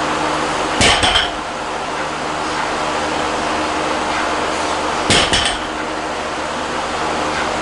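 A loaded barbell with rubber bumper plates touching down on the lifting platform twice, about four seconds apart. Each landing is a short cluster of knocks with a metallic ring from the steel bar and plates, over a steady background hiss and hum.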